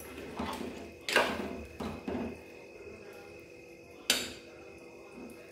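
Steel spoon and saucepan knocking against steel cooking pots: a few sharp metal clanks that ring briefly, the loudest about a second in and another about four seconds in.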